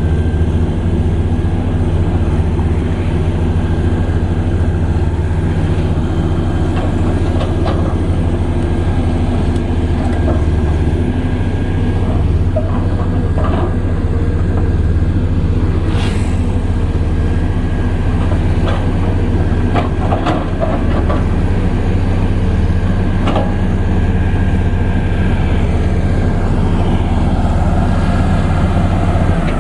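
Komatsu PC210LC excavator's diesel engine running steadily, with a faint steady high whine over it. Scattered sharp knocks and clanks come through, the strongest about halfway through.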